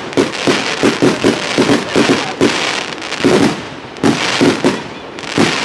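Fireworks barrage firing in quick succession: sharp bangs of shots and bursts, about three to four a second, with a brief lull about two-thirds of the way through.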